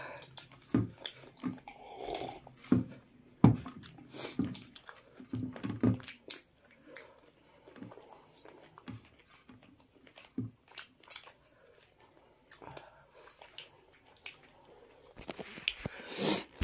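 Close-up eating sounds of hand-eaten rice and meat: chewing and mouth smacks, with fingers clicking and scraping on a steel plate, in irregular bursts that thin out after about seven seconds. A louder rustle near the end.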